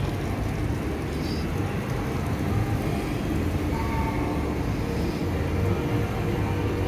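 Diesel engine of a NSW 49 class locomotive running with a steady low rumble, a faint hum coming through from about four seconds in.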